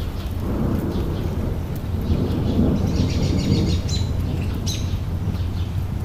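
Steady low rush of a mountain stream, with a small bird's quick chirping trill about three seconds in.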